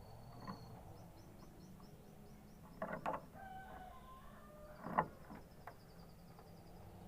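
Canary singing: fast high trills and a few lower whistled notes. Two sharp loud clicks come about three and five seconds in.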